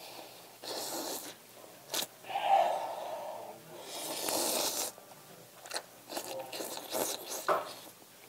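A person slurping hot ramyeon noodles off chopsticks in three noisy pulls, the last and longest about four seconds in, then chewing with small wet clicks and smacks.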